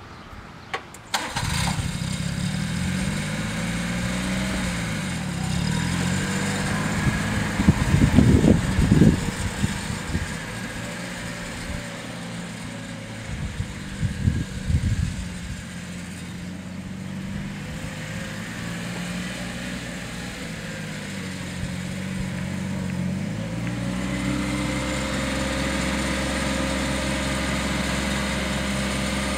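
Toro Workman 3200 utility vehicle's engine starting about a second in, then running with its pitch rising and falling as it drives off and comes back, and running steadily near the end. Two brief louder rumbles break in around eight and fourteen seconds in.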